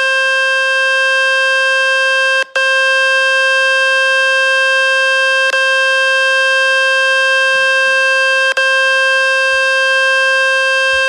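Samsung Galaxy F06's loudspeaker playing the Fix My Speaker cleaning tone, a steady, buzzy tone at full volume meant to shake dust and water out of the speaker. It breaks off briefly about two and a half seconds in, then carries on until it stops at the end.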